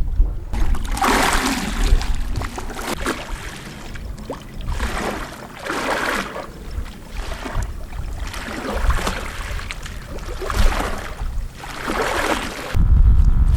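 Small sea waves washing in: a hiss of water that swells and fades again every two seconds or so.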